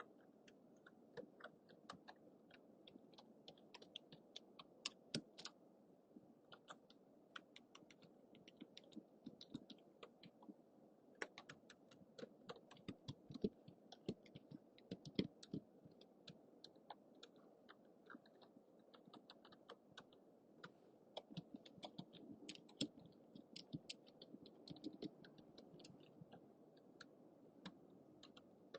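Soft typing on a computer keyboard: a continuous, irregular patter of quick key clicks over a steady low background hum.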